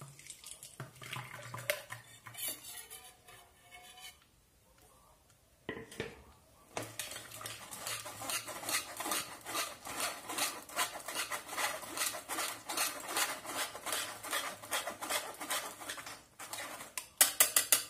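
Blended date-and-milk mixture poured from a metal blender jug into a plastic sieve, then a wire whisk stirring fast in the sieve in rapid, steady strokes, working the mixture through so the date skins stay behind. A few louder taps near the end.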